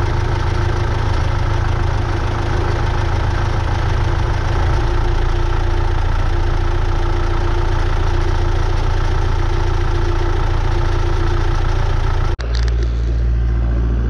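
Irrigation pump power-unit engine running steadily at a constant speed with an even hum. About twelve seconds in the sound cuts off abruptly and gives way to a low rumble.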